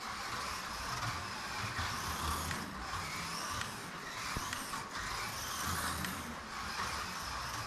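1:24 Scaleauto BMW Z4 GT3 slot car with metal chassis running laps: a steady whir of its electric motor and gears, swelling and fading as it goes round the track.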